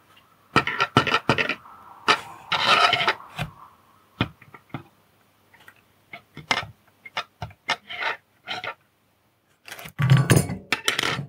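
Handling noise from hand-soldering a small circuit board: irregular taps, clicks and short scrapes of the soldering iron, solder wire and board on the work mat. A heavier bump comes about ten seconds in.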